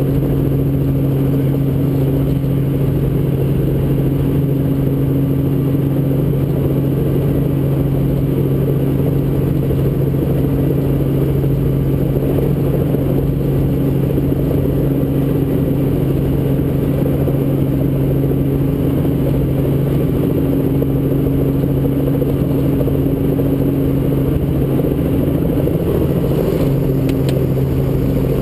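Robinson R44 Raven II helicopter heard from inside the cockpit: the steady drone of its six-cylinder Lycoming engine and rotors, with a constant low hum, running at steady power as it turns close to the ground.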